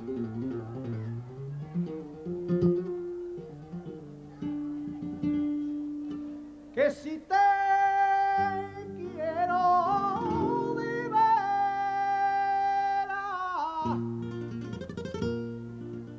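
Flamenco guitar playing alone, then a sharp knock about seven seconds in, after which a male flamenco singer holds one long, wavering, wordless note over the guitar for about six seconds. The guitar carries on alone near the end.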